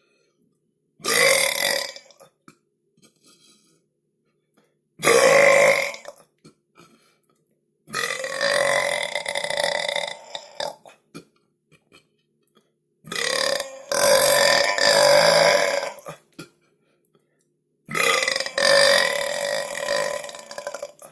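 A run of five loud human burps with short silent gaps between them; the first two are short, and the last three are long, drawn-out belches of two to three seconds each.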